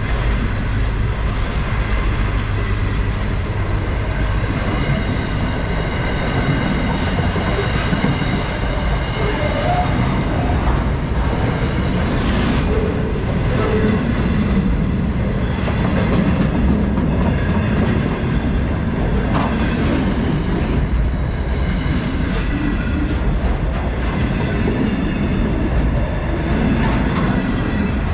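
Freight train wagons rolling past close by: a steady rumble of steel wheels on the rails, with an occasional clack.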